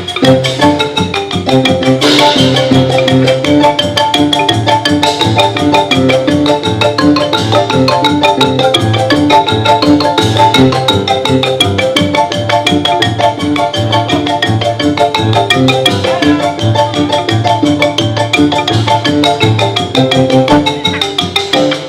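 Music led by a xylophone playing fast, dense runs of notes, over a repeating low pulse.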